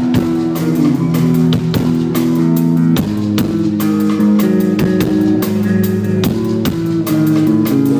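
Rock band playing live: two electric guitars holding chords over bass guitar and a drum kit keeping a steady beat, in an instrumental passage with no vocals.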